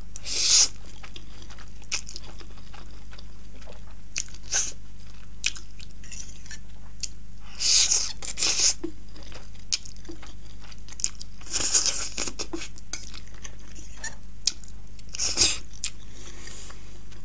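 Eating sounds: slurping 2x spicy Buldak instant ramen noodles and chewing them, in bursts about a second long every few seconds.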